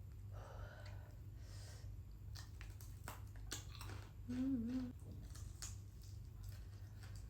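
Close-up chewing and biting of fried chicken, with many small wet clicks and crunches, and a short hummed "mm" a little after four seconds.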